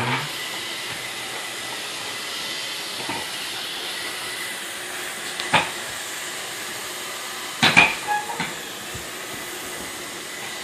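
Steady room hiss with a few sharp knocks, the loudest a quick cluster about three-quarters of the way through: a toddler's wooden ride-on bike bumping and rolling on a hardwood floor as it is pushed.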